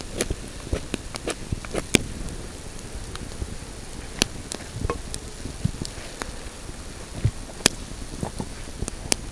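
Newly lit wood campfire crackling, with irregular sharp pops scattered through it.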